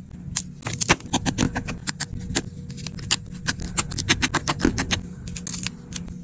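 Quick, irregular small clicks and taps of a precision screwdriver and small metal parts being worked inside an opened iPhone, several a second, over a low steady hum.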